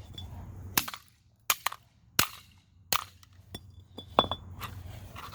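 A series of about seven sharp, loud bangs, spaced unevenly half a second to a second apart, from electronics such as a phone charger or AC adapter being smashed.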